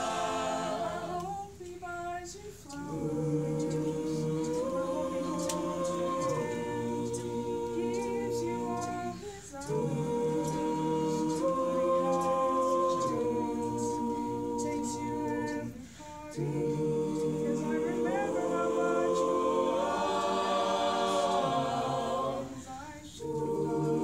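High-school mixed-voice a cappella choir singing without accompaniment, in long phrases of held chords with short pauses between them.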